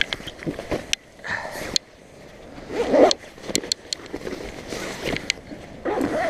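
A fabric shoulder bag being handled and opened by hand: rustling cloth, a zip and a series of short sharp clicks from its strap and fittings.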